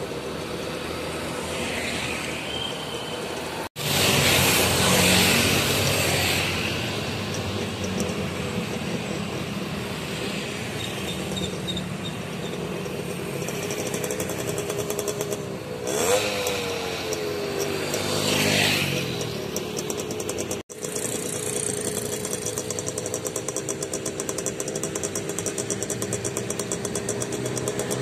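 Road traffic going past close by: motorcycles, cars, trucks and buses with engine and tyre noise, swelling louder several times as vehicles pass. The sound drops out abruptly for an instant twice.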